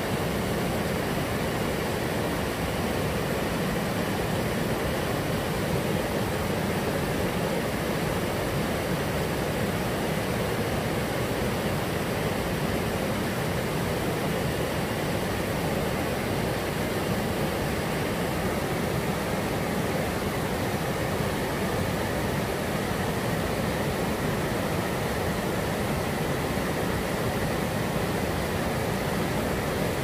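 Mountain stream rushing over boulders in small rapids, a steady, even rushing of water.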